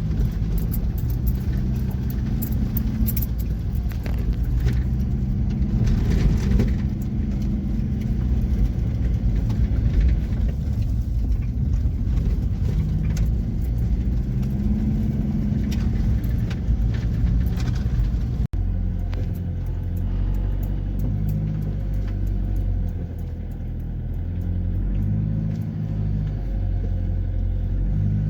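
Steady low rumble of a car in motion. It drops out for an instant about two-thirds of the way through, then goes on.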